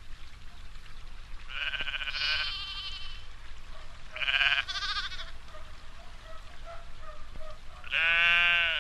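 Sheep bleating three times, each call a wavering, quavering cry, the last near the end the loudest.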